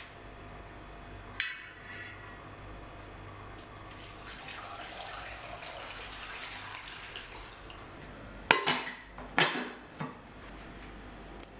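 Metal cookware clanking: one ringing knock about a second and a half in, then a quick cluster of knocks near the end, over a faint wash of water being handled.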